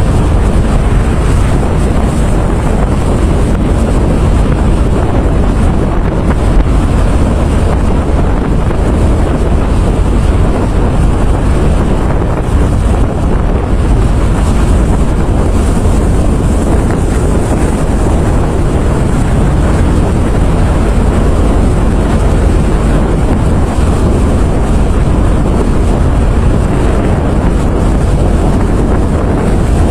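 Storm wind blowing hard across the microphone at sea, a steady, loud rush heavy in deep rumble.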